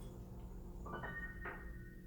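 Soft piano notes struck twice, about a second in and again half a second later, left to ring on.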